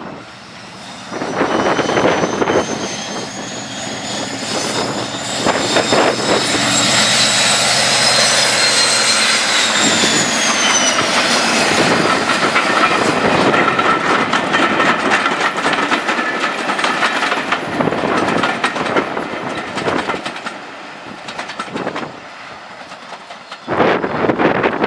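BR Class 56 diesel locomotive and its Ruston-Paxman V16 engine passing close under power: the engine noise builds to a loud peak, and a high whine falls in pitch as the locomotive goes by. The coach wheels then click over the rail joints as the train draws away.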